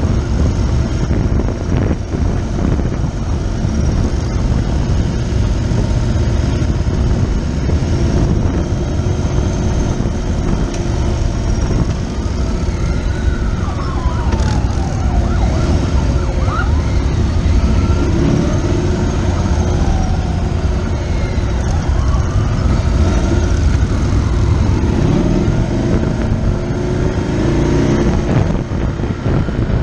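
Police motorcycle engines running steadily with road and wind noise as the column rides. From about twelve seconds in, several sirens wail in rising and falling sweeps, overlapping one another.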